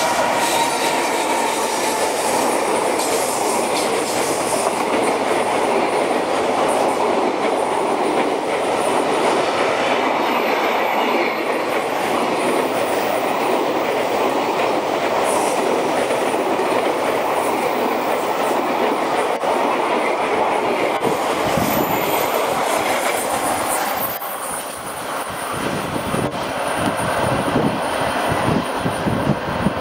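Container freight wagons rolling past, a loud steady rumble of steel wheels on rail with clickety-clack over the rail joints. About 24 seconds in the rumble eases and the wheel clacks stand out more separately as the last wagons pull away.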